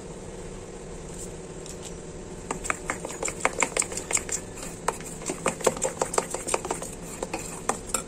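A steel spoon stirring semolina batter in a stainless steel bowl, clinking and scraping against the bowl in quick, irregular strokes that start about two and a half seconds in.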